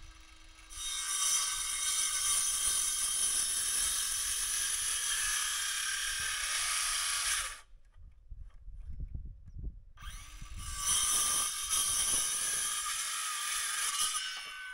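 Power saw cutting timber in two long runs, a first of about seven seconds and, after a short pause, a second of about four seconds.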